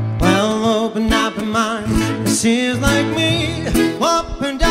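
Live music from a small band of voice, guitar, piano and saxophone, with a wavering melody line over guitar and a steady bass.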